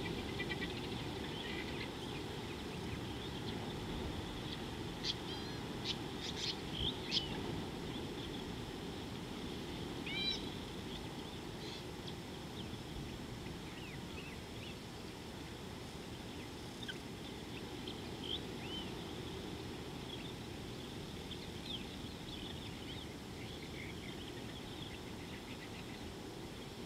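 Wild birds calling in short chirps and whistles over a steady low background rumble. A cluster of quick calls comes about five to seven seconds in and a single curved call near ten seconds, with sparser chirps after that.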